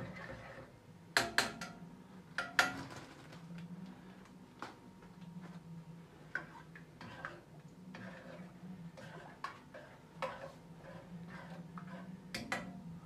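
A spoon stirring molokhia in an enamel pot, clinking and scraping against the pot's side. The sharpest clinks come about one and two and a half seconds in, followed by lighter, irregular taps over a steady low hum.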